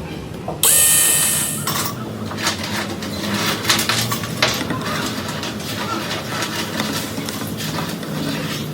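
A sudden hissing burst with a few steady tones about half a second in, lasting about a second, then a run of irregular clicks, taps and scrapes from small hard objects being handled.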